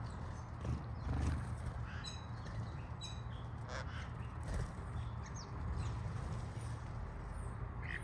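Backyard birds calling and chirping while feeding, a mix of short harsh calls and brief chirps, over a steady low rumble.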